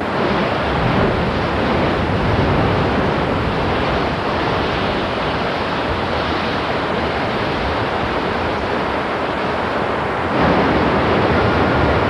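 Whitewater river rapids rushing: a steady roar of churning water that gets a little louder about ten seconds in.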